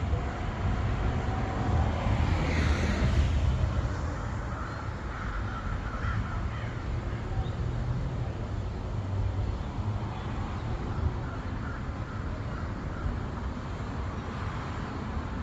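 Crows cawing a few times over a steady low rumble of wind on the microphone.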